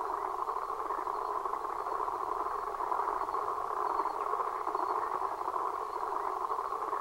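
A steady rushing noise drone in the middle range, even and unbroken, with no beat or tune: part of the film's electronic sound score.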